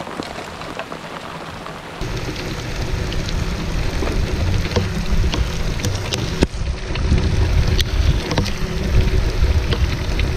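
Rain pattering on a boat and the lake surface, with scattered sharp drop ticks. About two seconds in, a strong steady low rumble starts abruptly and carries on under the rain.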